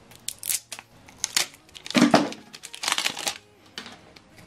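Plastic packaging of an ink cartridge being cut with scissors and torn open, crinkling in a few short bursts, the loudest about two seconds in.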